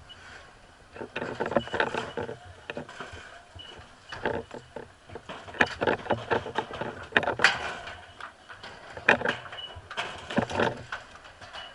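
Irregular knocks, scrapes and clatter of firefighters working on a roof to open it for vertical ventilation. A short high beep recurs now and then.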